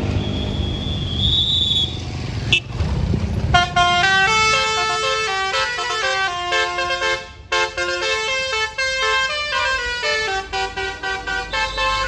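Bus engine running, then from about three and a half seconds in a basuri (telolet) multi-trumpet musical bus horn plays a quick tune of chords. The notes change several times a second, with a brief break about seven seconds in.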